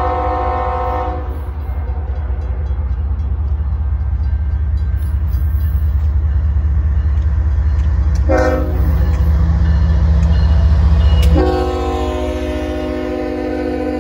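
Union Pacific diesel locomotive's air horn sounding the grade-crossing signal as it approaches. A long blast ends about a second in, a short toot comes about eight seconds in, and a long blast starts about eleven seconds in. Under the horn, the locomotive's engine rumble grows louder as it nears.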